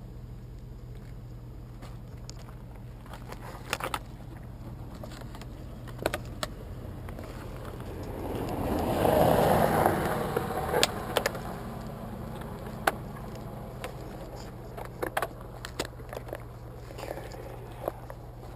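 A road vehicle passing by: a rush that swells and fades about eight to ten seconds in, over a steady low hum. Scattered light clicks and knocks of handling are heard throughout.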